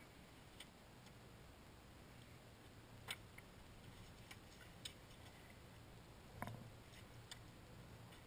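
Faint, scattered knocks and clicks of an ice chisel and a long-handled pole striking ice chunks in a hole cut through thick lake ice, about five in all. The sharpest comes about three seconds in, and a duller thump follows about six and a half seconds in.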